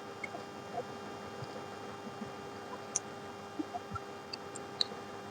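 Steady electrical hum with a few faint, short metallic ticks, as pliers work the cut copper windings of a ceiling fan coil.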